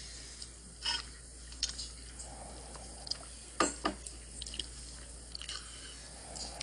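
A steady low hum with a few faint, scattered clicks and ticks, the two strongest close together a little past halfway.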